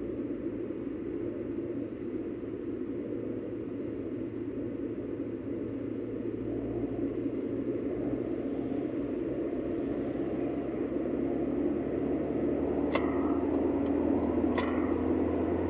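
Inside a moving car: a steady engine and road rumble with a low hum, slowly growing a little louder. A few short clicks come near the end.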